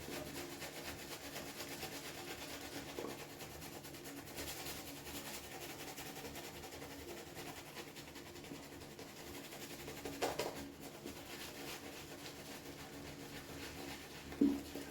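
Shaving brush working soap into lather, a faint, fine wet brushing, with a brief louder stroke about ten seconds in.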